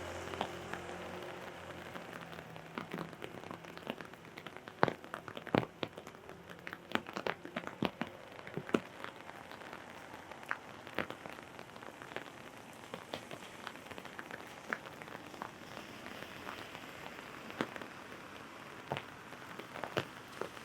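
Rain falling on an umbrella: a steady hiss with heavy drops striking the canopy as sharp, irregular taps.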